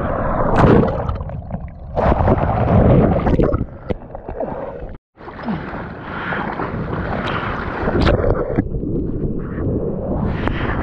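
Rushing, splashing whitewater and wave wash close to the microphone, mixed with wind buffeting the microphone. The sound cuts out for an instant about halfway through, then picks up again.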